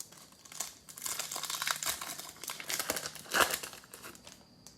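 Trading-card pack wrapper being torn open and crinkled: a run of crackling rustles, with the sharpest, loudest crackle about three and a half seconds in.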